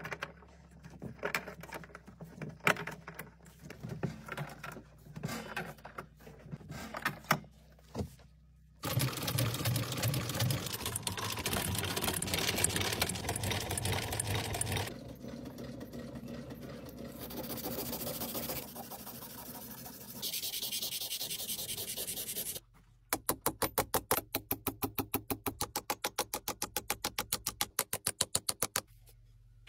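Leather-working sounds in sequence: scattered taps and clicks, then a leather sewing machine running for about six seconds. Near the end comes a fast, even run of light hammer strikes on steel, about five a second.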